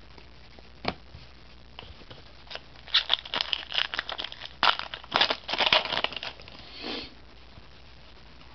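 A foil trading-card pack being torn open by hand, its wrapper crinkling in a dense burst of crackles from about three to six seconds in, after a single light tap about a second in.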